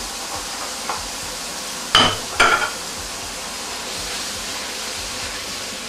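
Vegetables sizzling and being stir-fried in a stainless steel wok on an induction hob as onions go in and are stirred with a spatula. Two short loud clatters of the spatula against the wok come about two seconds in.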